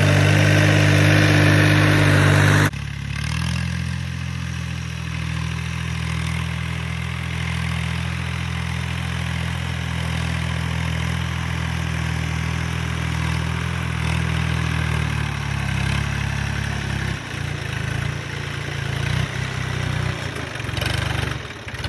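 Swaraj 744 FE tractor's three-cylinder diesel engine running under load as it pulls a heavily loaded trailer. Loud and close at first, it drops abruptly after nearly three seconds to a steadier, more distant engine note, which wavers unevenly through the last several seconds.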